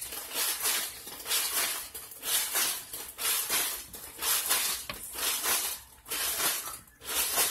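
Crushed ice rattling and crunching inside a hand-shaken ice cream maker, in steady strokes about twice a second, with a brief pause near the end.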